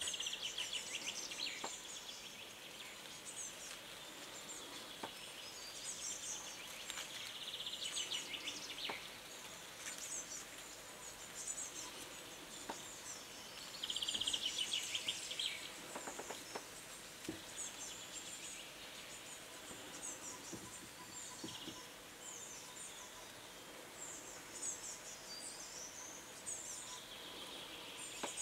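Woodland birdsong: several small songbirds singing, with high thin chirps throughout and a loud rattling trill that comes back a few times, loudest about halfway through.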